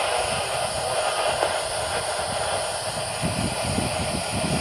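Approaching freight train led by two GE ES40DC diesel-electric locomotives, the engines and rolling train making a steady rumble with an even hiss over it.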